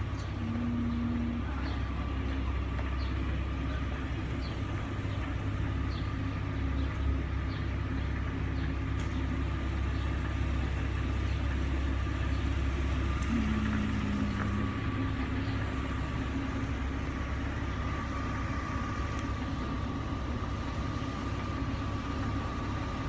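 Parked Ford Econoline carpet-cleaning van's engine and machinery running steadily, a low, even rumble with a constant hum over it.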